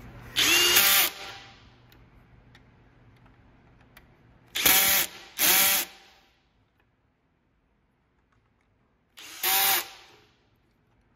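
Power drill driving screws home in four short trigger bursts: one about half a second in, two close together around the middle, and one near the end. The motor's pitch rises and falls within each run. These bursts tighten the three screws that hold the control module base to the saw's gear housing.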